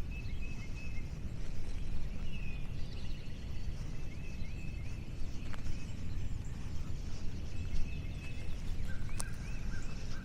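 Small birds chirping outdoors, short repeated high calls from more than one bird, a second lower series coming in near the end, over a steady low rumble.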